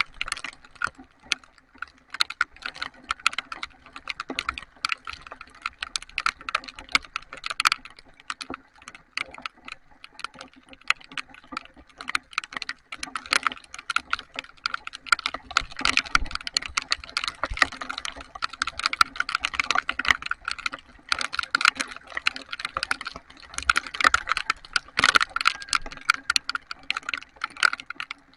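Heavy rain, with large drops striking a nearby surface close to the microphone as a dense, irregular run of sharp ticks.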